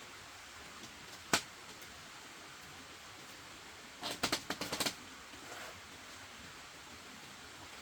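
A single sharp click, then a quick clatter of about seven clicks or knocks about four seconds in, over a faint steady hiss.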